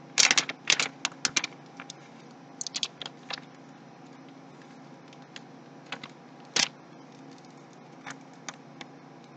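Small metal hardware being handled while assembling a PC, giving scattered sharp clicks and clinks. There is a quick cluster in the first second and a half, a few more around three seconds in, and a single louder click about two-thirds of the way through.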